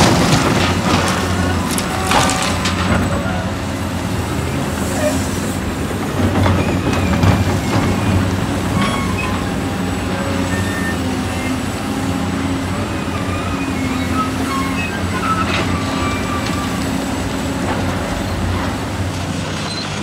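Heavy construction machinery's diesel engine running steadily, with a sharp metallic knock at the start and another about two seconds in, and scattered short squeaks and clicks throughout.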